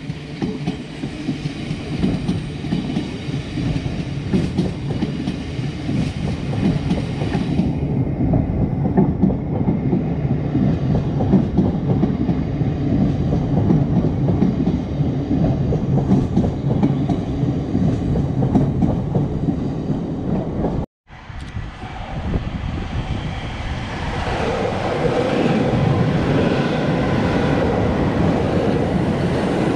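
A Class 700 electric multiple unit runs beneath the bridge, its wheels rumbling and clattering along the track. After a brief break about 21 seconds in, a second electric train, a South Western Railway Desiro unit, comes past, growing louder near the end.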